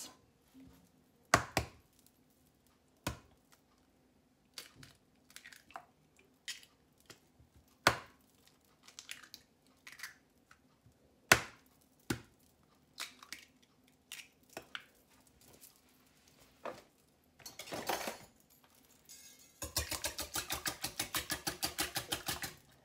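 Eggs cracked one after another into a glass mixing bowl, each crack a sharp knock, with light shell handling between them. Near the end the eggs are beaten in the glass bowl, a fast, even clicking of the utensil against the glass.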